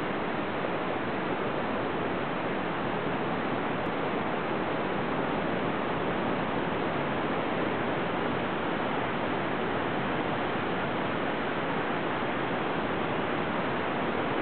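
Steady, unbroken rush of moving water, an even noise with no swells or breaks.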